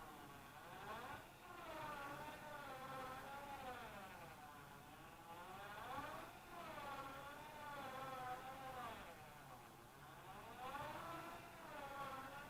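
Power-drill motor and gearbox driving a DIY ventilator, with a whining hum that sags and rises in pitch in a slow repeating cycle about every four to five seconds.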